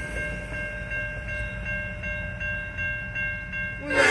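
Railroad crossing bell ringing steadily over the low rumble of an approaching diesel freight train. Just before the end, the locomotive's air horn starts blowing loudly.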